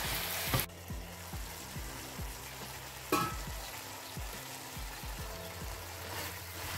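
Okra in coconut milk sizzling in a frying pan while a spatula stirs it, with soft knocks and scrapes against the pan and one sharper click about three seconds in.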